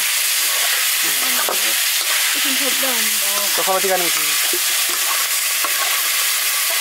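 Chicken pieces with onion and chillies sizzling in a hot black metal karahi, with a steady hiss, while a wooden spatula stirs and scrapes them around the pan.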